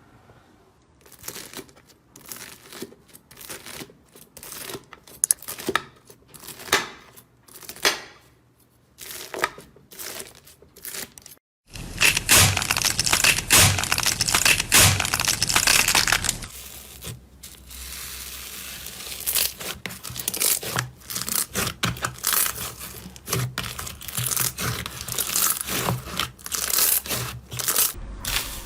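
Slime being worked by hand, giving irregular crackling and popping clicks. About twelve seconds in, after a brief gap, the crackling turns loud and dense for a few seconds, then goes back to scattered crackles.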